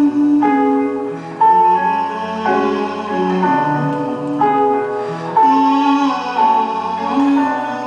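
Live music on stage: an instrumental passage of a song, with sustained chords and a melody whose notes change about once a second.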